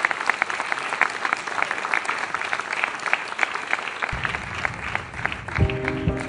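Audience applauding, many quick hand claps. Music starts under the clapping about two-thirds of the way through, and held musical notes come in near the end.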